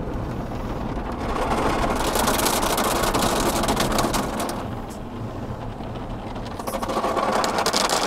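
Rotating brushes of a tunnel car wash scrubbing against the car's glass and body with water spray, heard from inside the car as a rushing, fast patter of strips slapping the windows. It swells about a second in, eases off around the middle, and swells again near the end as the brushes pass over.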